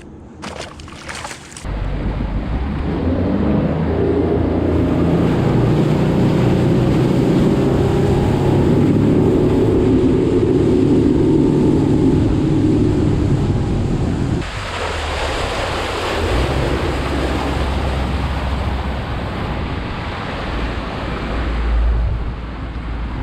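Motorboat running across open water: engine drone with wind and water rushing past. About fourteen seconds in, the engine tone drops away and a rushing hiss of wind and water takes over.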